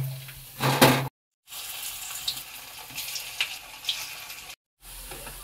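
Pakoras of leftover rice and potato deep-frying in hot oil: a steady sizzle with scattered small pops and crackles, louder in two surges during the first second. The sound drops out briefly twice.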